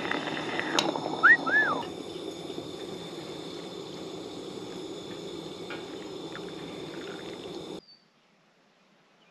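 Coffee being poured from a stovetop moka pot into a stainless steel mug, with two quick arched bird whistles about a second in. After that comes a steady outdoor hiss with faint high tones, which cuts off suddenly to near silence near the end.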